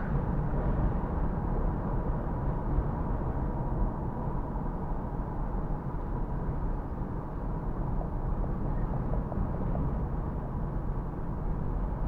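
Steady low rumble of strong typhoon wind, mixed with the running noise of a moving car.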